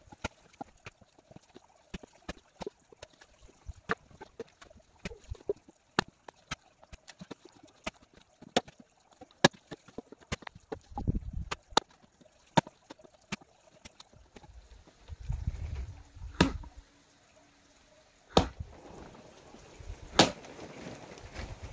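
Firewood being split with an axe: three heavy, sharp blows near the end, about two seconds apart. Before them come many lighter, irregular knocks and clatter of split wood pieces being handled.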